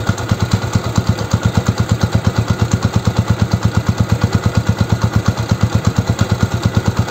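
Yamaha YTX125's single-cylinder four-stroke engine idling steadily, an even train of exhaust beats at about eleven a second.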